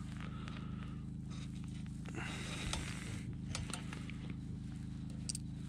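Small clicks and rustles of hands handling a caught crappie and working a soft-plastic jig out of its mouth, over a steady low hum.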